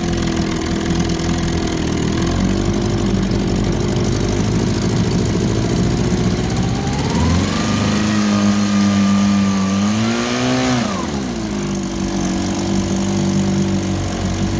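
1954 Johnson QD-15 10 hp twin-cylinder two-stroke outboard motor running in a test tank. It idles, revs up about seven seconds in, holds there for a few seconds and drops back to idle near eleven seconds.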